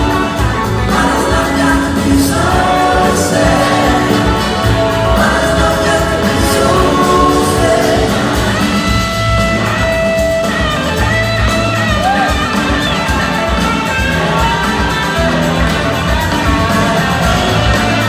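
Live blues-rock band playing in a large hall, electric guitars over a full band, with voices singing. A few notes are held for about two seconds around the middle.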